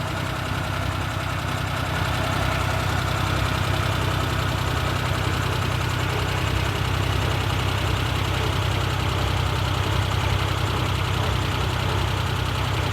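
Suzuki Jimny JA71 engine running steadily at idle, getting slightly louder about two seconds in.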